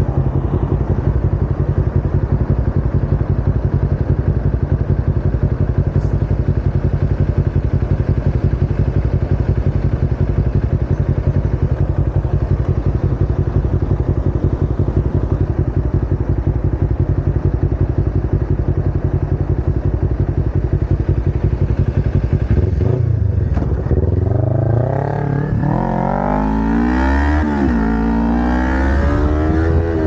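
Kawasaki Ninja 250R's parallel-twin engine idling steadily. After about 23 seconds it pulls away, the revs rising, dropping back at a gear change, then rising again.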